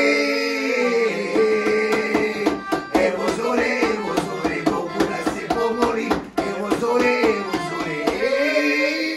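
Piano accordion playing a rhythmic folk accompaniment while men sing over it, with long held notes at the start and again near the end.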